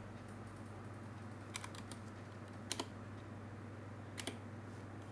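Computer keyboard keystrokes, a few sparse clicks coming in short clusters of two or three, over a steady low hum.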